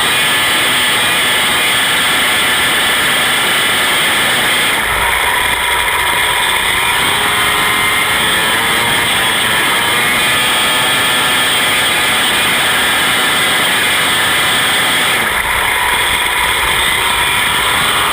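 Hurricane midget race car engine running at racing speed, its pitch rising and falling as it revs. The sound changes about five seconds in and again near the end.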